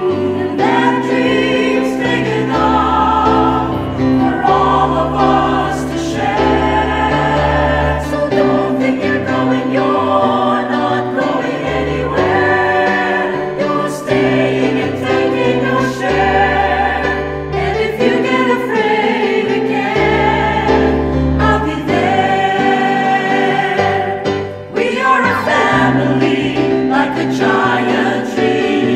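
Choir singing, with low held notes underneath that change every couple of seconds.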